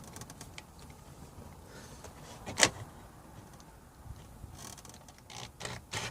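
Handling noise from working on a hard plastic car console: one sharp click a little before the middle, then several short scraping rasps near the end.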